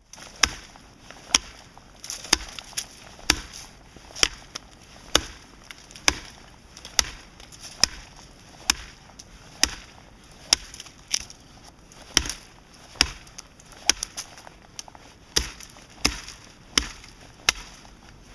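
Condor Parang Lading, a heavy 17½-inch carbon-steel blade, chopping into wood in steady strokes about one a second.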